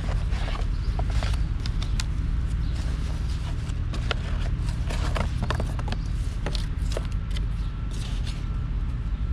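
Irregular light clicks and taps of a camera and its packaging being handled, over a steady low hum.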